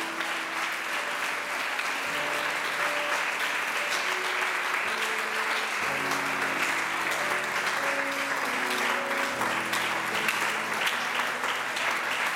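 Congregation clapping hands in sustained applause, with a live worship band holding slow, soft chords underneath that change every few seconds.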